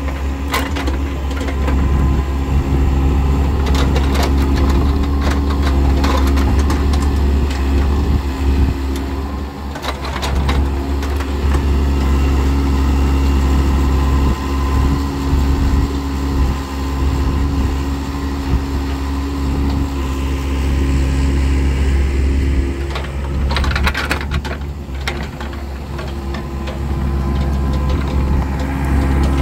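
Daewoo Solar 55V mini excavator's diesel engine running steadily while the machine tracks and pushes mud with its dozer blade. A few sharp knocks stand out over the engine hum, one about half a second in, one around ten seconds, and a cluster near the end.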